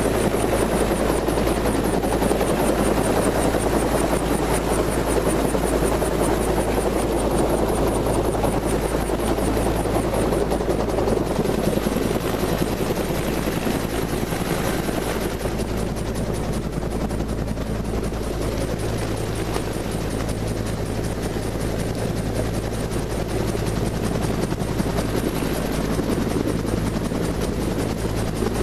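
Helicopter running on the ground after landing with its rotors turning, heard from inside the open cabin: a steady, unchanging drone with a low hum and a fast flutter.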